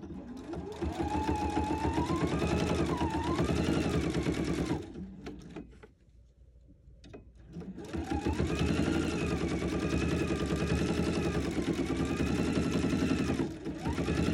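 Husqvarna Viking sewing machine stitching binding on through a binder attachment: rapid needle strokes with a motor whine that rises and falls in pitch as the speed changes. It runs for about four seconds, stops for a couple of seconds, then runs again for about six seconds.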